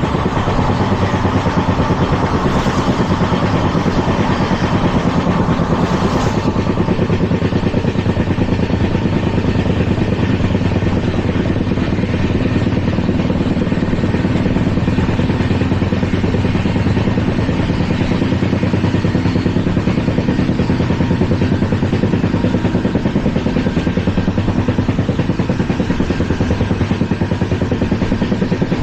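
Onboard running sound of an LHB passenger coach at speed: a steady rumble and rattle of wheels on track. For about the first six seconds a louder, higher rush rides on top and then cuts off suddenly.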